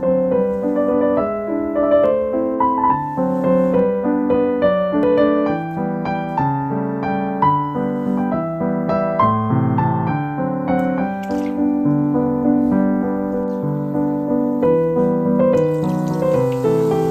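Background piano music, a steady run of notes throughout. Near the end, a short hiss of liquid being poured into a pot.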